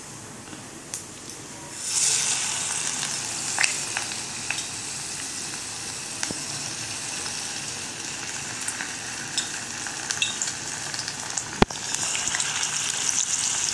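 Batter-coated chicken lollipops deep-frying in hot oil in an iron kadai: a steady hissing sizzle that starts suddenly about two seconds in as a piece goes into the oil. A sharp tap comes near the end, and the sizzle swells again as another piece is added.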